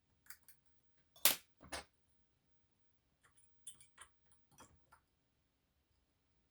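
Metallic clicks and ticks of a dimple pick and tension tool working in a dimple lock with sprung sliders. The sharpest click comes about a second in, followed by another, then a run of small ticks a couple of seconds later.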